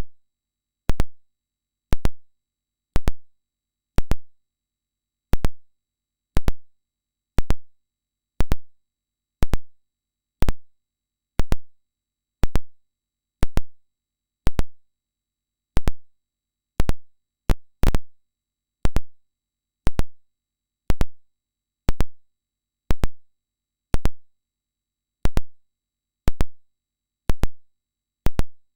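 Sharp ticks of a hearing-test recording, about one a second with silence between. Near the middle two ticks come close together, and the second is louder.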